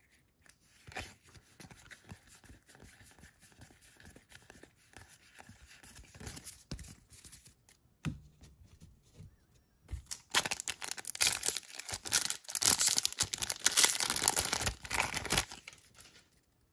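Foil booster pack wrapper crinkling and tearing, loud and dense for about five seconds in the second half, after several seconds of faint rustling of cards being handled.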